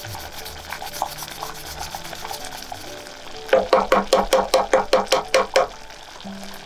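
Metal rasp grater worked over a pot of simmering curry, grating fresh ginger. Faint scraping at first, then about a second in from the middle a quick run of about a dozen sharp, evenly spaced strokes lasting about two seconds.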